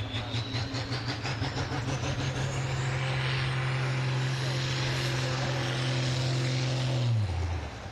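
Diesel farm tractor pulling the weight sled at full throttle, engine held at steady high revs with a whistle rising in pitch over the first few seconds. The engine note drops away sharply about seven seconds in as the throttle comes off.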